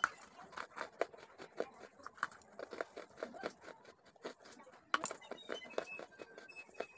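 Close-miked crunching and chewing of a chunk of dry red-brown eating clay: irregular crisp crackles as it is bitten and ground between the teeth, with one sharp snap about five seconds in.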